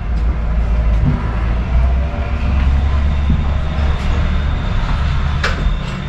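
A steady low rumble with a faint clatter over it, and one short sharp sound near the end.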